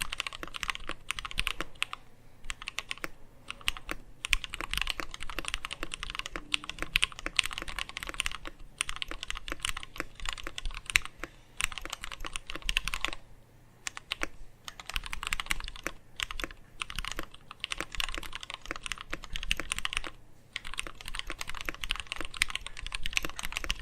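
Fast typing on a mechanical keyboard with lubed linear Gateron Black switches (Cherry top housings), a top-mount stainless steel plate and ABS Tai Hao keycaps: a steady run of key clacks with a few short pauses.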